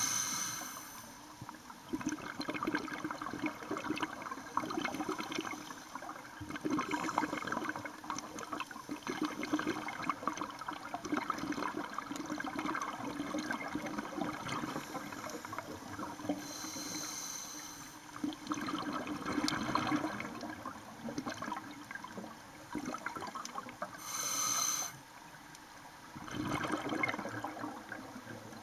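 Scuba diver breathing through a regulator underwater: stretches of crackling, gurgling exhaled bubbles, broken twice by a short hiss of inhalation, about sixteen and twenty-four seconds in.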